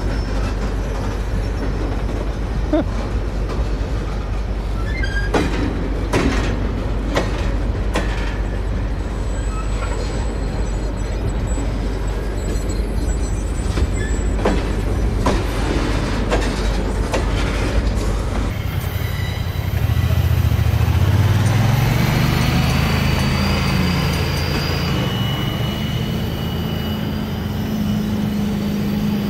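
Tank cars of a freight train rolling slowly past, a steady low rumble with scattered sharp clicks of the wheels over rail joints. About eighteen seconds in this cuts away to a louder, steadier sound with held pitches.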